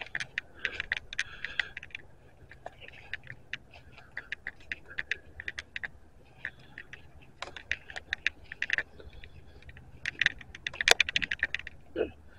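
Footsteps crunching through dry fallen leaves: an irregular run of sharp crackles in clusters, loudest near the end.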